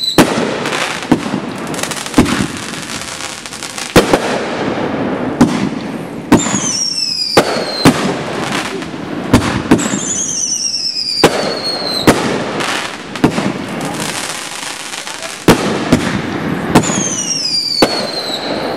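Aerial fireworks going off: sharp bangs every second or two with crackling between, and a whistle falling in pitch four times.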